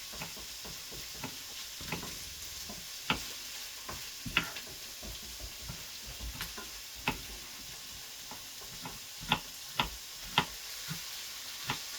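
Chopped vegetables and bacon sizzling steadily in olive oil in a frying pan, with irregular sharp knocks from kitchen utensils, a few of them louder.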